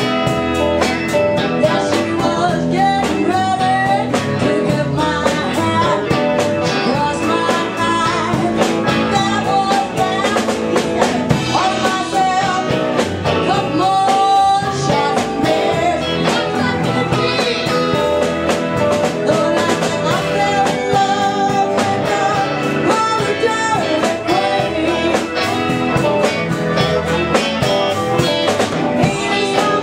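Live blues band playing with a woman singing lead over electric guitars, bass, keyboard and a drum kit, with a steady beat throughout.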